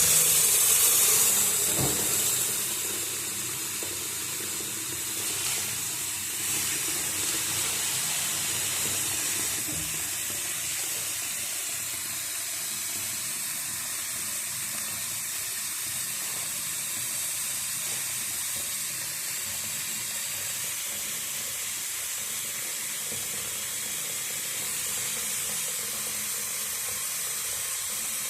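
Tap running into a wash basin, filling it up to the overflow to test the newly fitted drain and trap for leaks. The rush of water is loudest for the first couple of seconds, then settles to a steady hiss.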